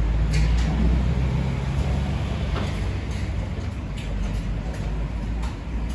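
Snack-bar kitchen background noise: a steady low rumble, easing slightly in the second half, with a few faint clicks and clinks.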